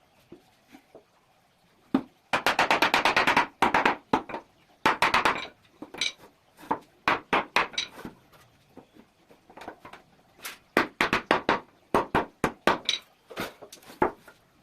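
Hammer striking in quick runs of sharp taps, up to about eight a second, broken by short pauses and a few single blows.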